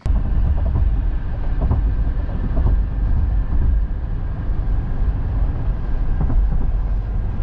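Moving car on the road: a loud, steady, low rumble of road and engine noise.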